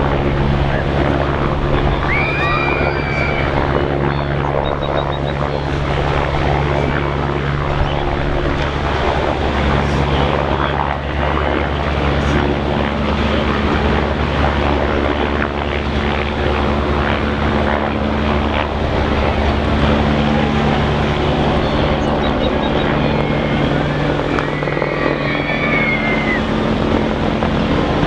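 Steady low engine drone with a hum that shifts pitch a few times, over a broad even noise. A short high rising-and-falling call sounds about two seconds in and again near the end.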